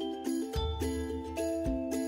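Background music: a light melody of pitched notes over a low beat about once a second.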